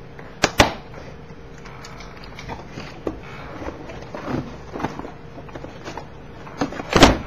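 Ballpoint pen jabbing through the seal of a cardboard box with two sharp clicks, then the box being turned over and handled with light cardboard rustling and scraping, and a loud thud near the end as it is put down on the table.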